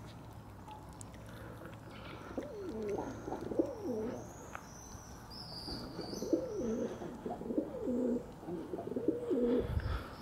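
Feral rock pigeons cooing in low, wavering phrases: a short bout a couple of seconds in, then a longer run of coos in the second half.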